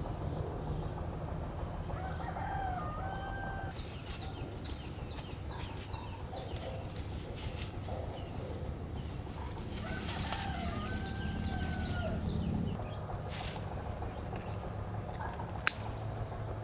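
A rooster crowing twice, about eight seconds apart, each crow rising and then holding its pitch. A steady high-pitched tone runs underneath, and a single sharp click comes near the end.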